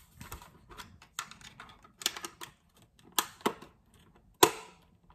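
Irregular plastic clicks and knocks from a gel blaster's plastic body and battery connector being handled and pressed together, with a few sharper clicks about two, three and four and a half seconds in.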